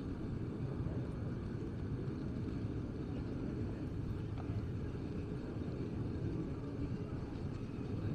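Street ambience of a city walk: a steady low rumble with no distinct events.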